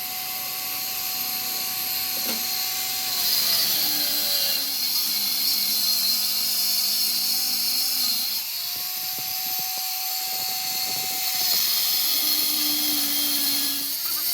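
A power tool running steadily with a strong high hiss and a faint whine that shifts in pitch.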